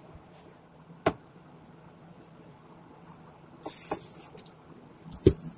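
Things handled on a tabletop at a plate: a light knock about a second in, then a short, loud hissing scrape a little past halfway, with more knocks and the start of another hissing scrape near the end.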